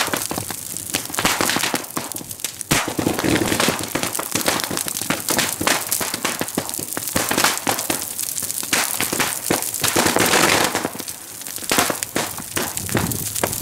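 Firecrackers bursting in rapid, dense volleys inside a large bonfire, over the crackle of the burning pyre. The popping eases briefly around eleven seconds in.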